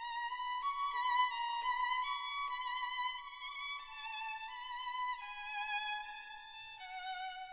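Background music: a violin melody of held notes with vibrato, stepping slowly downward in pitch.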